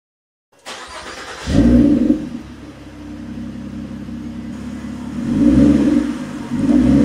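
Ford Fusion's 3.5-litre Cyclone V6, breathing through a Vibrant resonator and Thrush welded mufflers, is started up. It cranks briefly, catches with a loud flare, and settles to idle. Near the end it is revved twice.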